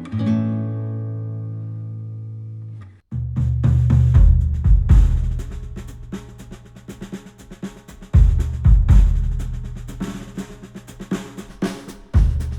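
Music played through headphones and picked up by microphones: a held guitar chord fades out, there is a brief gap about three seconds in, and then a drum kit comes in, with heavy low hits about every four seconds and quick strokes between them.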